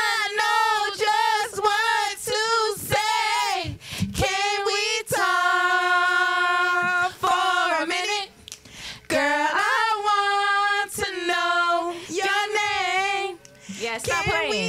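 Women singing the lyrics of an R&B song without accompaniment, one melody line with two long held notes in the middle.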